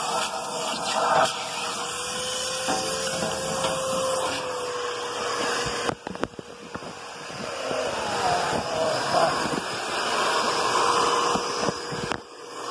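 Vacuum cleaner running steadily with a constant whine, sucking up drill shavings from inside the metal box. The sound dips briefly about six seconds in and again near the end.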